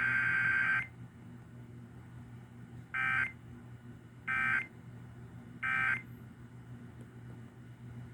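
Emergency Alert System SAME data tones, a raspy warbling burst around 1.5–2 kHz. A longer header burst ends under a second in, then three short identical bursts follow about a second and a half apart: the end-of-message code that closes the required weekly test.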